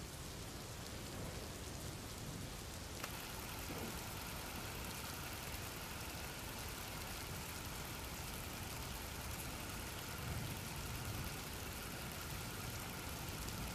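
Steady rain-like hiss of a background ambience track with a low rumble underneath. A click comes about three seconds in, after which a faint high whine joins the hiss.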